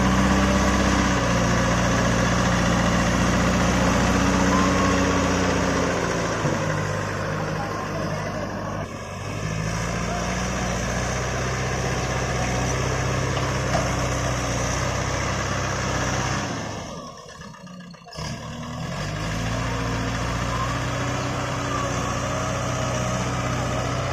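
JCB backhoe loader's diesel engine running, its pitch stepping down and back up as the engine speed changes. The sound drops away almost completely for about a second, around seventeen seconds in, then the engine returns.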